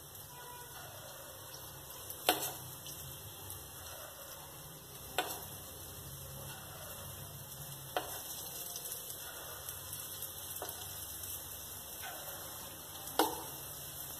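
Spoonfuls of dal batter frying in hot oil in a kadhai, a steady sizzle. A few sharp metallic clicks of a spoon on the pans stand out, the loudest about two seconds in and near the end.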